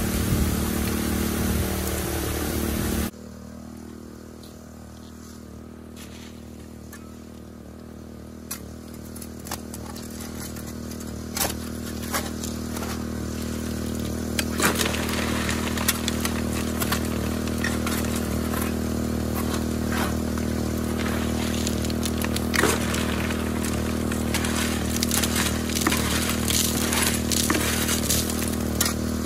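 Small engine-driven water pump running steadily. For the first three seconds water hisses from the highbanker's spray bar, then it cuts off suddenly. After that come shovel scrapes and rocks clattering into the highbanker's hopper, growing more frequent.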